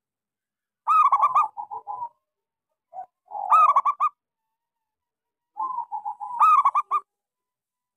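Zebra dove (perkutut) singing: three short phrases of quick repeated coos, each about a second long, with pauses between them.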